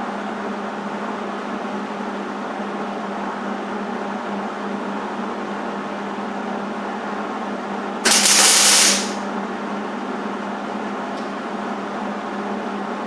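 Hobart 140 MIG welder laying a single tack weld on thin sheet metal: one burst of arc noise, about a second long, some eight seconds in, over a steady hum.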